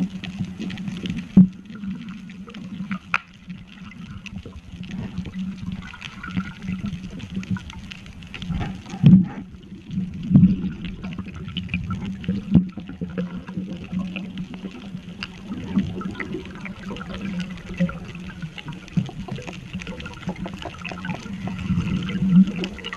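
Muffled underwater water noise with a low steady hum, broken by scattered clicks and knocks, the loudest about a second and a half in and again around nine to ten seconds in.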